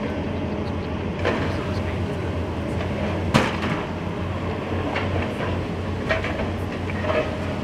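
High-reach demolition excavator working: its engine runs steadily while the shear attachment tears and crushes metal siding and steel framing, giving a series of metal clanks and crashes. The loudest, sharpest crash comes about three and a half seconds in.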